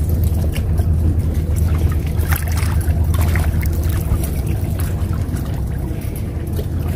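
A steady, low-pitched engine drone, with faint scattered clicks over it.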